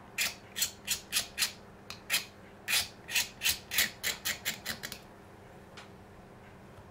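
A hand tool scraping in quick strokes along the edge of a 3D-printed plastic part, shaving off the elephant foot where it sat on the print bed. About seventeen short scrapes run over five seconds, coming faster and shorter near the end before they stop.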